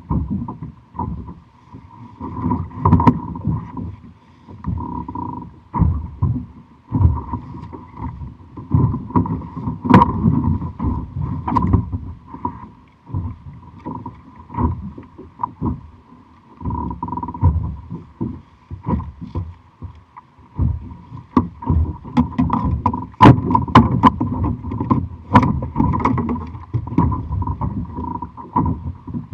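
Water slapping and sloshing against a plastic fishing kayak's hull in choppy water, with irregular knocks and a steady faint high hum throughout.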